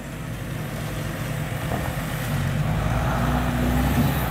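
SUV engine running under load as the vehicle works over off-road terrain, growing steadily louder and dropping back near the end.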